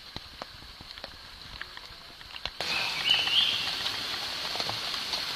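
Steady hiss of rain falling on the rainforest, starting abruptly about two and a half seconds in, with a brief high chirp soon after. Before it, faint scattered ticks.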